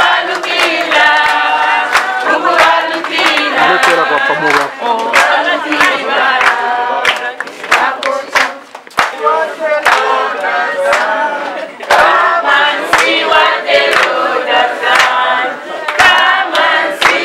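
A group of women and children singing together, with hand claps in time.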